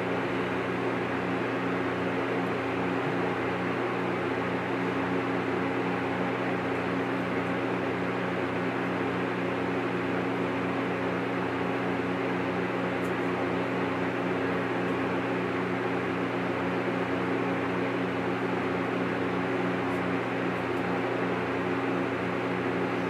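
Steady machine hum, like a fan or small motor running, with a few steady low tones and a faint regular throb underneath.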